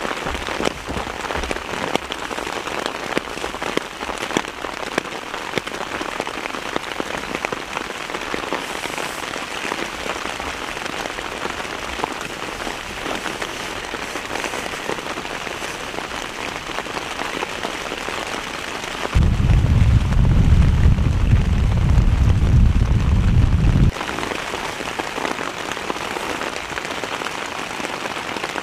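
Heavy rain falling steadily, a dense hiss full of small drop ticks. About twenty seconds in, a loud low rumble takes over for about five seconds, starting and stopping abruptly, with the rain fainter beneath it.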